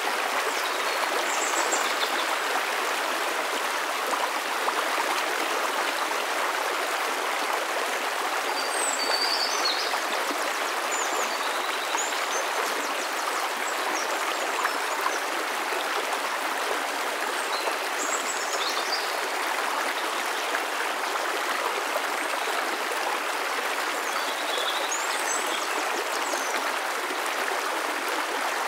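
Shallow rocky stream babbling steadily over stones, with a few brief high chirps now and then.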